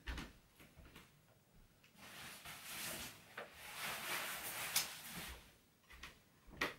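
Faint rustling with a few sharp clicks and knocks: a person rummaging through things, out of sight.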